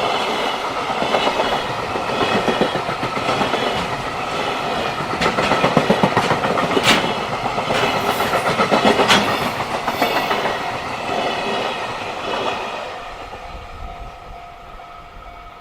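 Freight train passing, its wagon wheels clattering over the rail joints in a fast, dense rhythm with a few louder clanks. The sound fades away in the last few seconds as a steady tone comes in.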